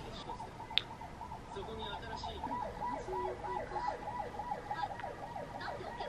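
A faint electronic siren warbling fast, about five rises and falls a second, with a single light click about a second in.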